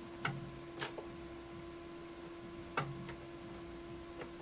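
A handful of separate clicks, spaced irregularly, over a faint steady hum, as the computer hangs on a loading screen with the busy pointer showing.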